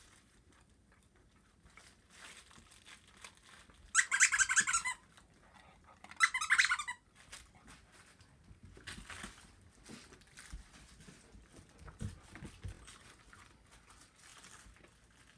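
Squeaky dog toy squeezed repeatedly, giving two short bursts of rapid, high-pitched squeaks about two seconds apart.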